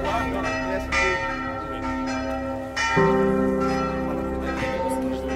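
Church bells ringing, struck again every second or two and each stroke ringing on over the last, with a deeper bell coming in about three seconds in.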